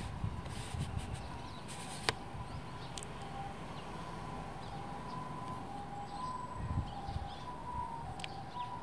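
Eurasian tree sparrows chirping, with a faint two-tone siren switching back and forth between a higher and a lower note, over a low rumble. A single sharp click about two seconds in.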